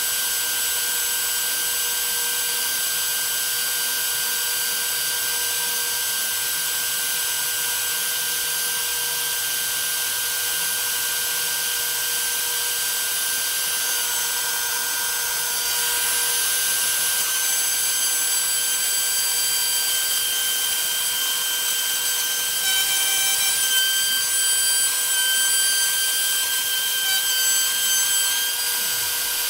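DeWalt 611 trim router on a CNC machine spinning a small end mill through quarter-inch aluminium plate: a steady high whine with cutting hiss. It gets a little louder about halfway through, and higher tones come and go near the end.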